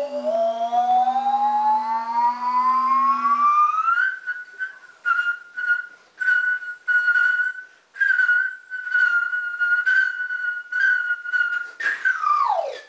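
Utterbot, a homemade instrument, played into a microphone: a long upward glide in pitch over a low steady tone that stops after about three seconds, then a high note repeated in short rhythmic pulses, then a quick downward swoop near the end.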